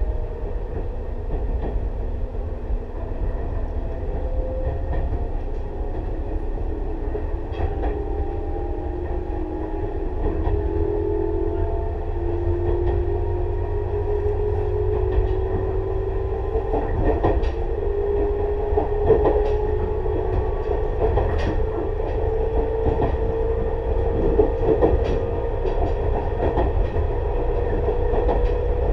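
Tobu 6050-series electric train running under power, its TM-63 traction motors whining in a tone that rises slowly as the train gathers speed. Under the whine there is a steady low rumble, with wheel clicks over rail joints every couple of seconds.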